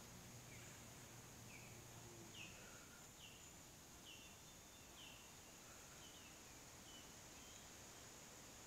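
Near silence with a bird faintly calling in the background: a string of short falling chirps, about one a second, over a steady high hiss.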